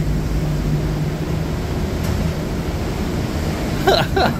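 Steady rush of wind and churned sea water along a moving ship's hull, with a low steady engine hum. A voice is briefly heard near the end.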